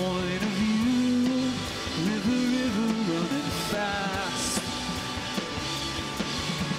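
Rock band playing live through an instrumental passage: electric guitars carry a bending, held melodic line over bass and drums, with quick repeated picked notes near the end.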